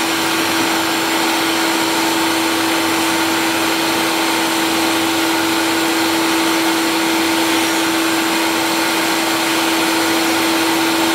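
Grinding spindle running at a steady speed, its abrasive stone wheel grinding the aluminium bore of an automatic-transmission bell housing with oil as lubricant: a steady hum on one pitch over an even hiss.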